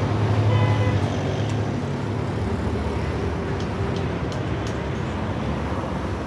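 A steady low mechanical hum over an even rumble, loudest in the first second or so, then easing slightly. A brief pitched tone sounds about half a second in, and there are a few faint clicks.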